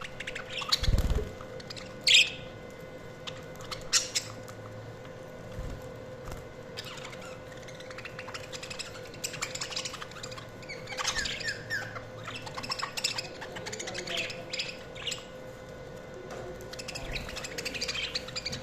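Budgerigars chirping and squawking, with loud sharp squawks in the first few seconds and denser, busier chattering from about halfway on. A faint steady hum runs underneath.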